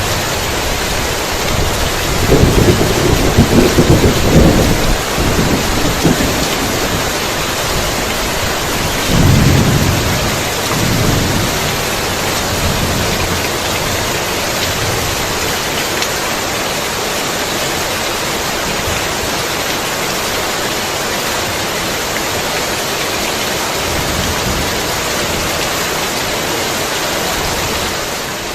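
Heavy rain falling steadily, with a rolling rumble of thunder about two seconds in that lasts several seconds, and a shorter, weaker rumble about nine seconds in.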